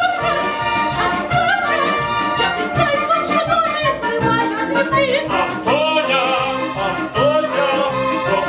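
Operetta music: a lively melody with vibrato over a steady instrumental accompaniment, continuing between sung verses of the number.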